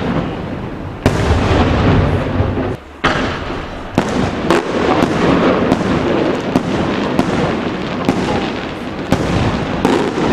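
Aerial fireworks shells bursting in quick succession: repeated sharp bangs over a constant dense rumble of further bursts, with a brief lull about three seconds in.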